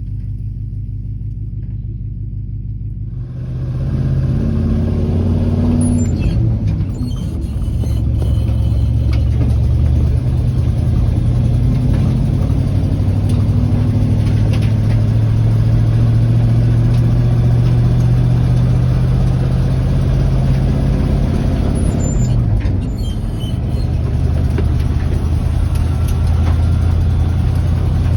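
1968 Chevrolet K20 three-quarter-ton 4x4 pickup's engine running as the truck drives: a steady low drone that gets louder, with added road noise, about three seconds in. Near the end the engine note drops briefly and then climbs again.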